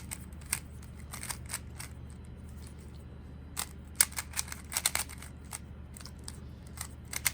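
Monster Go 3x3 speed cube being turned by hand: its plastic layers click in quick irregular bursts, the densest run about four to five seconds in.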